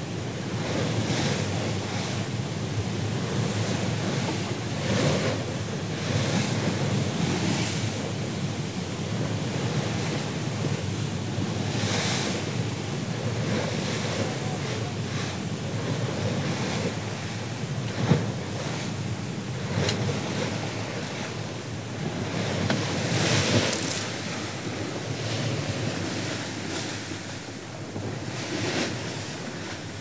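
Bow wave of a Thames sailing barge under sail in a force 5 wind: a continuous rush of water with louder surging splashes every few seconds, and wind buffeting the microphone. One brief sharp knock partway through.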